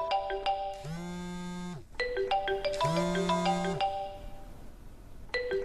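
A mobile phone ringing with a marimba-like ringtone. A short tune of mallet notes repeats about every two seconds, with a low buzz of about a second in the gaps, like the phone vibrating.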